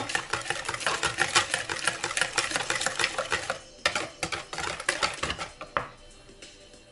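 Hand whisk beating an egg, sugar and melted-butter mixture in a bowl: a fast, continuous run of clicks as the whisk strikes the bowl. It pauses briefly a little past halfway and stops about a second before the end.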